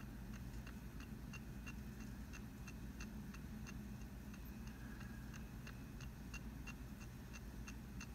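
Soft electronic ticks from a computer diagnostic readout, about three a second and slightly irregular, over a steady low hum.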